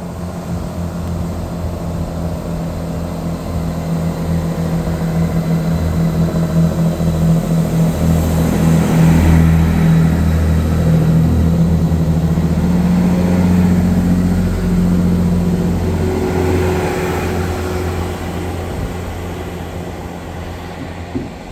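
Great Western Railway Turbo diesel multiple unit passing close by, its underfloor diesel engines running with a steady hum that grows loudest as the train goes past, then fades as it runs away. The engine note steps up slightly partway through.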